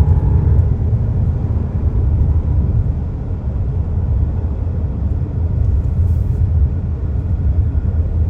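A loud, steady low rumble with no distinct tones, dipping slightly in level midway.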